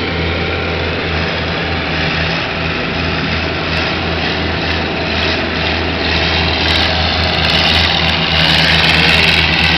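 Combine harvester engine running steadily with a low hum as the machine drives across a dirt field, growing a little louder near the end.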